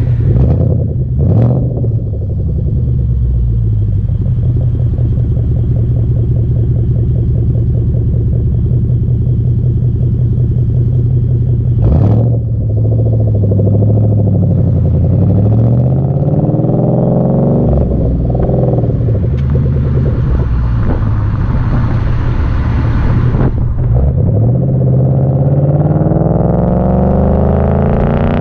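2012 Ford Mustang GT's 5.0 Coyote V8 through Flowmaster Outlaw axle-back mufflers, heard right at the tailpipe: a steady idle, a short sharp sound about twelve seconds in, a few revs rising and falling, then the pitch climbing steadily as the car accelerates away near the end.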